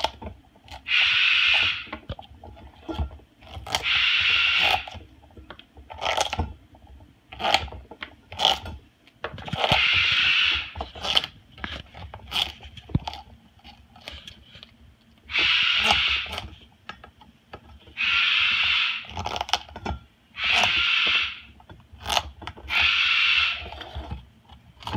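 Moluccan cockatoo gouging and shredding a butternut squash with its beak: a run of scrapes about a second long, every few seconds, with sharp crunching clicks in between.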